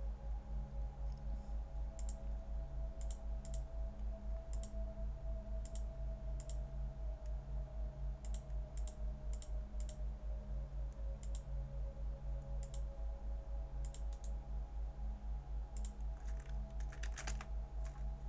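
Computer keyboard keys and mouse clicks, sparse and at uneven intervals, a little busier near the end. Under them runs a steady low hum with a fast even pulse.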